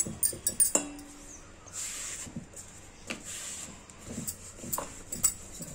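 Wooden rolling pin rolling out chapati dough on a round wooden board. It makes a soft rolling and scraping sound with irregular light wooden knocks, a few sharper ones in the first second and again about five seconds in.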